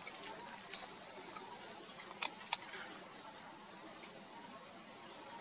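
Faint sounds of a monkey chewing and biting food, with a few soft clicks over a steady high hiss.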